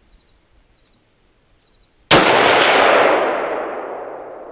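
A single rifle shot from a scoped AR-style rifle fired off a bench rest, about two seconds in: a sudden loud crack followed by a long echo that slowly dies away.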